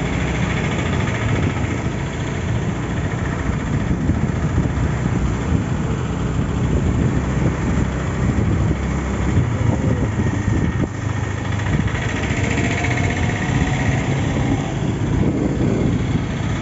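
Motorbike riding along the road, its engine running steadily, with wind rumbling over the handheld phone's microphone.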